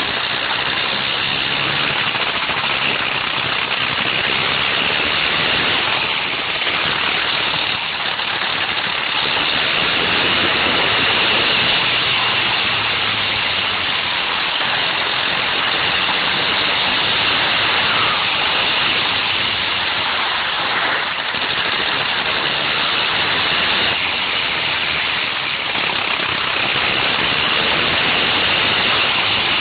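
Wankel rotary engine of a go-kart running hard at speed, a dense, rapid-firing buzz, steady apart from a few brief dips in level.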